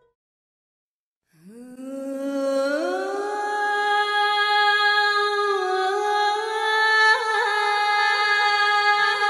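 About a second of silence, then a single low hum-like tone swells in, glides upward in pitch and holds steady, with a slight dip in pitch just past the middle and a brief flutter about seven seconds in.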